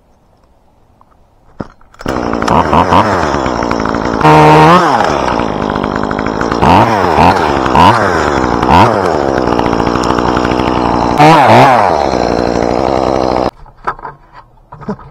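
Chainsaw starting up about two seconds in. It idles and is revved up and down several times, then cuts off abruptly shortly before the end.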